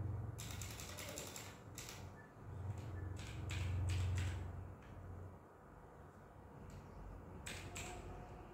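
Typing on a laptop keyboard: short irregular runs of key clicks with pauses between them. Under it is a low rumble that swells twice, at the start and about four seconds in.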